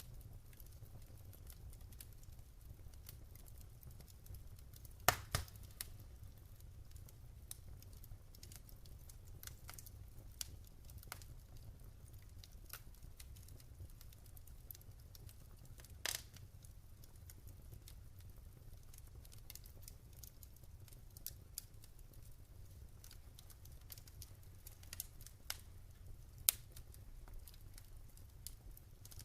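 Wood fire crackling in a fireplace: a steady stream of small clicks and pops over a low, steady rumble, with a few sharper, louder pops about five seconds in, in the middle, and near the end.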